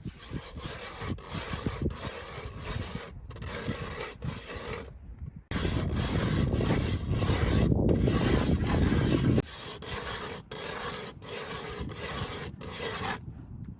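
Rhythmic rasping strokes, about one and a half a second, which grow louder and denser for a few seconds in the middle and then drop back.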